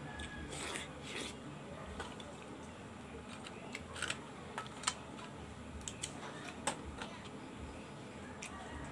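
Eating sounds: sucking and chewing on boiled scallops, then a scatter of sharp clicks about four to seven seconds in as scallop shells clack against each other and the pan while they are picked through.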